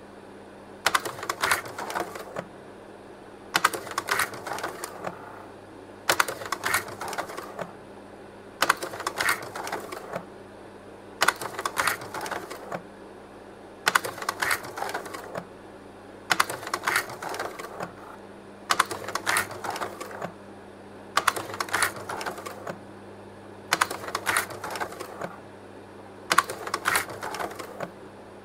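Leica Pradovit P150 slide projector advancing slides: a cluster of mechanical clicks and clacks about every two and a half seconds as each slide changes, over the steady hum of its cooling fan.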